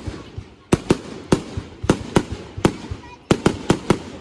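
Consumer fireworks going off in a rapid, irregular series of sharp bangs, about a dozen, each with a short echoing tail, bunching into a quick run near the end.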